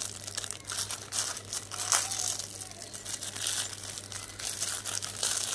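Thin clear plastic packaging crinkling in irregular crackles as it is handled and a wall switch is worked out of it, over a steady low hum.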